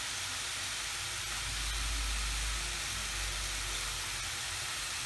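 Chopped onions and tomatoes frying in oil in a kadai, sizzling as a steady hiss.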